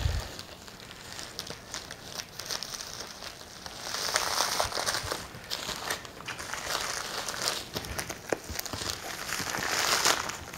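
Padded paper mailing envelopes crinkling and rustling as they are handled and a graded comic slab is slipped inside, with many small crackles. There is a low bump right at the start, and the rustling is loudest a few seconds in.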